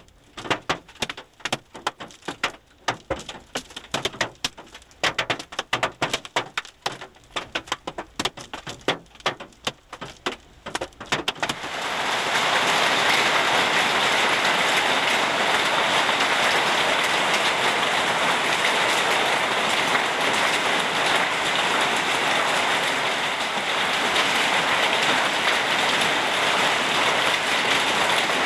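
Hailstones striking a car's roof and windshield as many separate, irregular sharp knocks. About twelve seconds in this changes to the steady, dense sound of heavy hail falling.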